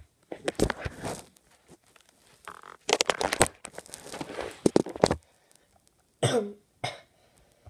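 Small plastic toy figurines being handled and set down on a wooden table: two spells of clicks, knocks and rustling, the second longer and busier. Near the end come two short vocal sounds like a cough.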